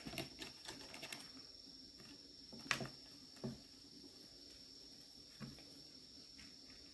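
Light clicks, taps and scuffles from cats eating dry food from a metal bowl and kittens playing on a wooden stand, densest in the first second, with one sharp click about three seconds in. A faint steady high-pitched hum runs underneath.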